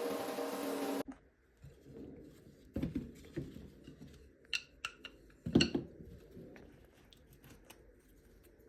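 An electric power tool's motor running steadily, stopping abruptly about a second in. Then scattered knocks and clicks of small wooden pieces being handled, the loudest about five and a half seconds in.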